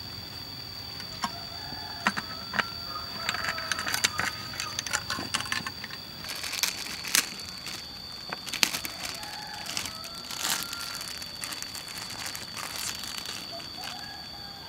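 Plastic packaging of an enoki mushroom pack crinkling and tearing as it is opened by hand, a run of sharp crackles starting about two seconds in, over a steady high drone of forest insects.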